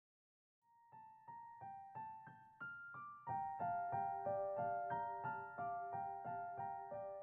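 Quiet background piano music: a run of single notes, about three a second, each ringing on. It starts after about a second of silence.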